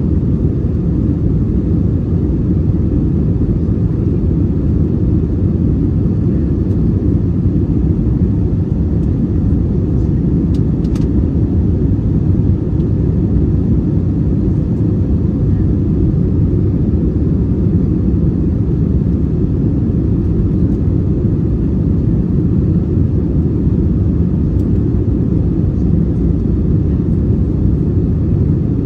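Steady low rumble of airflow and engines inside the economy cabin of an Airbus A320neo with Pratt & Whitney PW1100G geared turbofans, descending with its wing speedbrakes raised.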